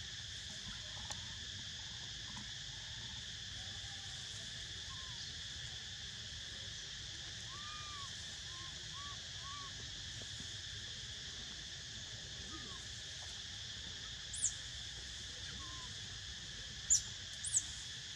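A steady, high-pitched insect chorus of crickets or cicadas drones without a break. Faint short calls come and go beneath it, and three short, sharp high chirps stand out near the end.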